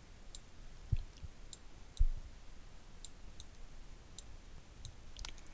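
Computer mouse clicking several times at irregular intervals as nodes on a curve are selected and dragged, with two dull low thumps about one and two seconds in.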